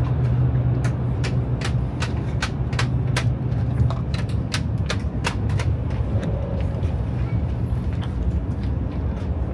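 Steady low rumble of an Iryo high-speed train running, heard from inside a carriage. Over it comes a run of sharp ticks, about two or three a second, from about a second in to about halfway.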